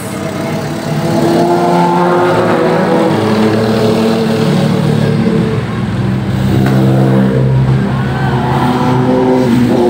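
Engines of a car and motorcycles passing close by in a steady stream of traffic, loud and continuous, with their pitch sliding slowly down as they go past.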